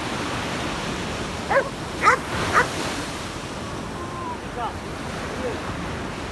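A dog barks three times in quick succession, about half a second apart, over the steady wash of sea surf.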